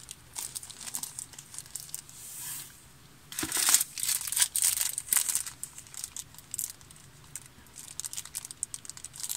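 A packet of pearls being handled and crinkling in the hands, in irregular crackles, busiest a few seconds in.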